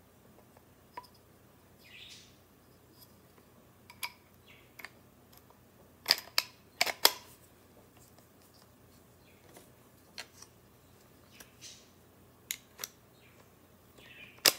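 Metal gun parts of an aluminum pistol receiver built around a Gevarm .22 trigger group and bolt being handled and fitted together by hand: scattered sharp metal clicks and a few short, softer scraping sounds. The loudest run of clicks comes about six to seven seconds in.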